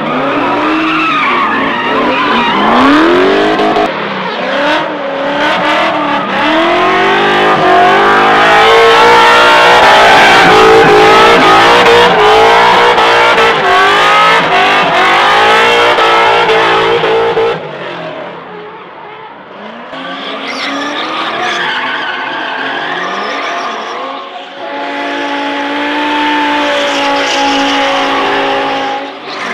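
Drift cars' engines revving hard, the pitch swinging up and down, over tyre squeal and skidding. The sound is loudest in the first seventeen seconds, drops away about eighteen seconds in, then builds again to an engine held at steady high revs near the end.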